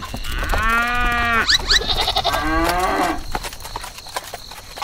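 Farm animal calls, a long steady call followed by a second, falling call.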